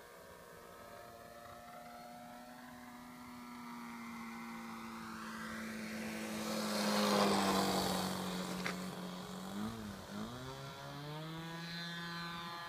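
Escapade RC airplane's motor and propeller during a fast low pass. The note grows louder to a peak about seven seconds in and drops in pitch as the plane goes by, then climbs in pitch again near the end as the throttle is advanced or the plane turns back.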